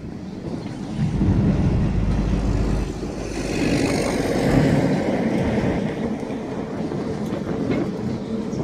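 Empty coal hopper cars of a freight train rolling slowly past, a steady rumble of wheels on rail that swells heavier about a second in.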